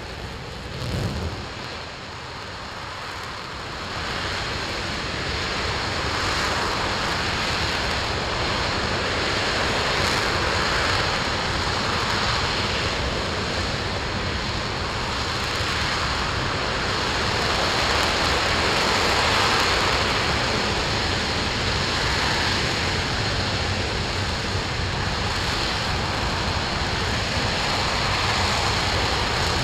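RS-25 liquid-fuelled rocket engine hot-firing on a test stand. The sound starts up with a short surge about a second in, builds over the first few seconds, then holds as a steady, loud rushing noise.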